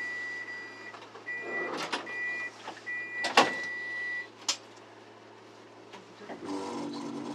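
Electronic beeper sounding a steady high tone in three long beeps, over a low steady vehicle hum, with several sharp clicks or knocks, the loudest about three seconds in. A low rumble comes in near the end.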